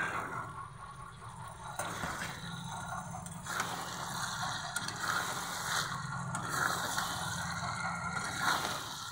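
Steel spatula scraping against a wok as it turns freshly added chicken pieces in hot oil and masala, in repeated strokes, with sizzling underneath: the chicken is being fried in the masala (bhuna).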